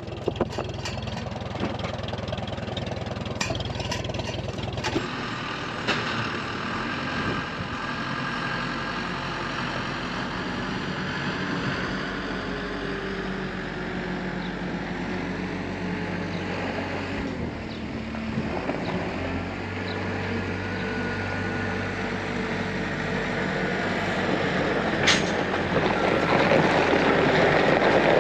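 Tractor engine running steadily, its pitch shifting a few times, with several sharp clanks in the first few seconds and another near the end as it grows louder.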